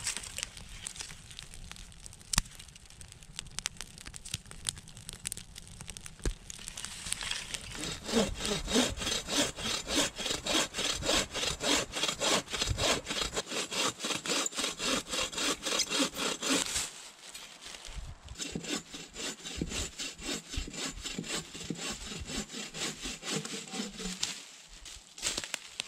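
Bow saw cutting through a mossy log by hand, in a steady rhythm of push-and-pull strokes about two a second. The sawing breaks off briefly partway through and then resumes.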